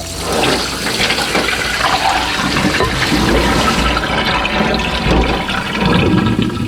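Water running hard from a kitchen tap into a sink.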